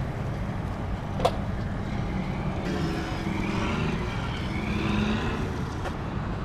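Steady low rumble of a car's engine and road noise, with a single sharp click about a second in.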